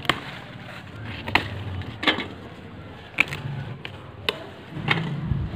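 Okra pods snapping off their stalks as they are picked by hand, a series of sharp, crisp snaps at irregular intervals amid leaf rustle.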